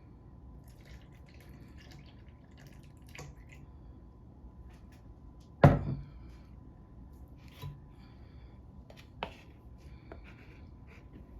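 Milk being poured into a bowl of pancake batter, with faint clinks of kitchen handling. One loud knock comes just after halfway, and two softer knocks follow.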